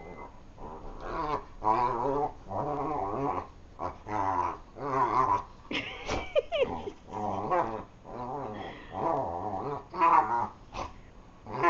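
Dogs growling in play, in a run of wavering growls one after another. A short high whine glides up and down about six seconds in.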